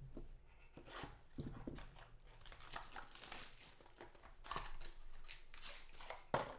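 Plastic wrap on a trading-card box tearing and crinkling as the box is opened and a wrapped pack is pulled out, with cardboard scuffing and rustling. A sharp click comes near the end.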